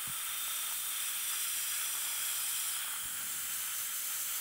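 Dental handpiece running steadily while polishing a provisional crown: a steady high hiss with a faint constant whine underneath.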